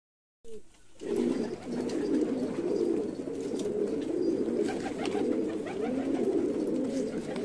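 Several domestic pigeons cooing together, their coos overlapping in a continuous low chorus.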